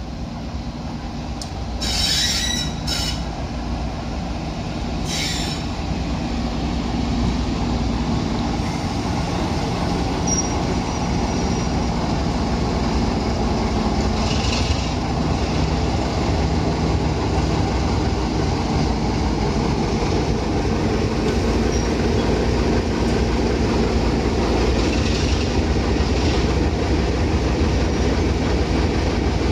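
A steady low rumble that slowly grows louder, with a few short high-pitched bursts about two, three and five seconds in.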